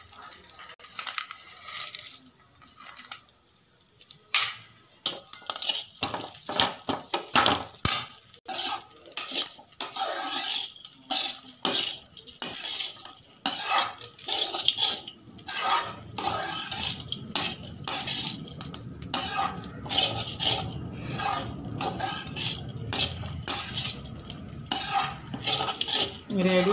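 A metal spoon scraping and clinking against a metal kadai as flattened rice (poha) is stirred, in quick irregular strokes. A steady high-pitched whine runs underneath.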